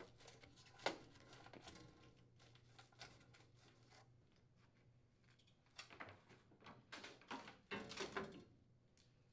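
Near silence with a few faint clicks and rustles: pliers squeezing the plastic strain relief and the old power cord being pulled free of the cooktop base. A faint click about a second in, then a cluster of small handling noises in the second half.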